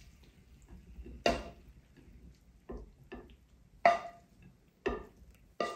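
A cooking utensil clinking and knocking against a pan or dish: six sharp strikes, each with a short ring, at uneven intervals.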